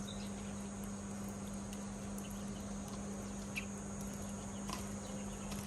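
A few faint, short sparrow chirps over a steady low hum.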